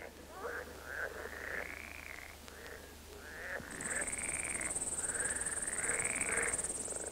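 Repeated frog-like croaking calls, each rising and falling, with a steady high insect trill that starts about halfway through.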